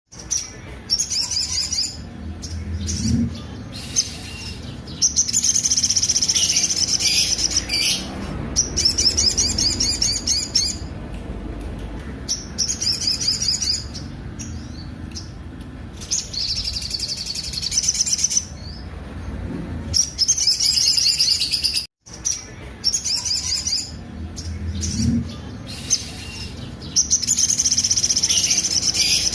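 Sogok ontong sunbird (sogon) singing its rough, harsh song: high-pitched, fast trilled phrases a few seconds long, repeated with short pauses between.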